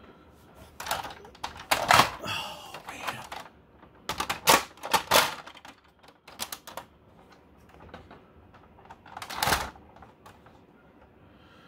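Hard-plastic G.I. Joe Night Raven toy jet being handled and set down on a table: plastic clicks, clatter and knocks in several short bursts, with one louder knock about two seconds before the end.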